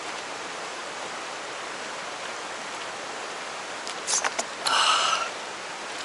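Steady rushing hiss of a mountain stream's running water. A few short clicks come about four seconds in, then a brief high call about a second later.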